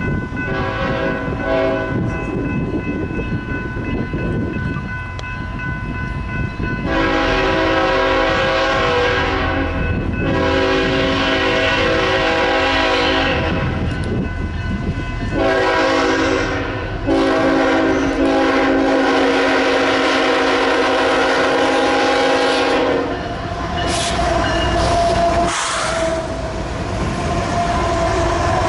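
BNSF freight locomotive's air horn blowing the grade-crossing signal as the train approaches: two long blasts, a short one, then a final long blast. Then the locomotives pass close by with a heavy engine rumble and wheel clatter.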